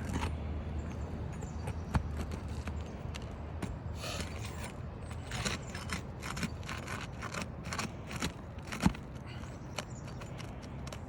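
Asphalt roof shingles being pried up and unsealed with a pry tool: irregular scraping and crackling, busiest in the middle, with two sharp knocks.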